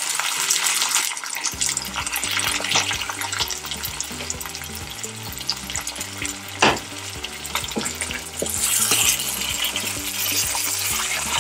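Pork chops, onion and tomato sizzling in hot oil in a nonstick pan while a wooden spatula stirs them, with one sharp knock about two thirds of the way through.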